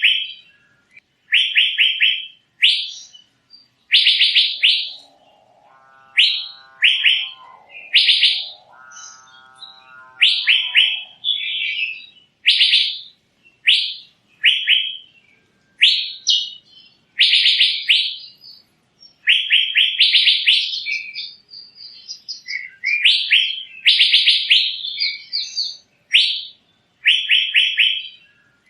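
Asian fairy-bluebird (cucak biru) calling: short phrases of rapid, high chirping notes, repeated about once a second. Two lower, drawn-out buzzy calls come about six and nine seconds in.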